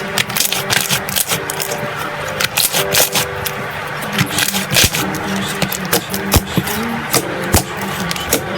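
Crunchy slime being squeezed and pressed, giving dense, irregular crackling and popping clicks.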